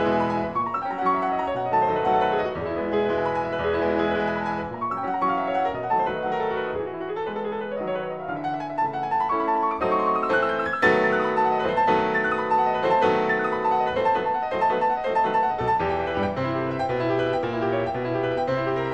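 Background music: a piano playing a slow classical-style piece, with notes struck and left to ring.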